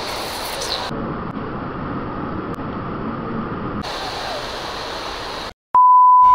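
Water rushing over rocks in a waterfall cascade, a steady noise. About five and a half seconds in it cuts off, and after a brief gap a loud, steady, high test-tone beep, the colour-bar tone, starts.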